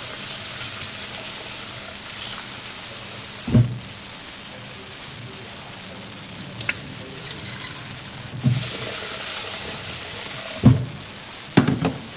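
Kitchen tap running while long-grain rice is rinsed in a bowl under it: a steady hiss of water for the first few seconds and again about two-thirds of the way through. A few dull knocks come between, about a third of the way in and twice near the end.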